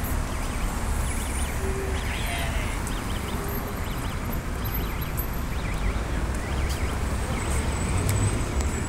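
City street ambience: a steady low rumble of road traffic, with a few faint, short, high chirps.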